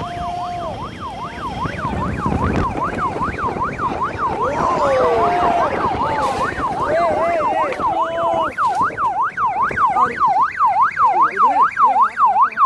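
Electronic yelp siren sweeping rapidly up and down, about two to three sweeps a second, quickening and getting louder towards the end.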